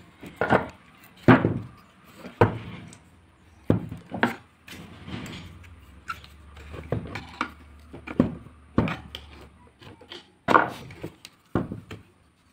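Irregular clunks and knocks of a part-stripped electric hand planer's metal body being turned over and set down on a wooden workbench, about a dozen sharp impacts with scraping and handling noise between them.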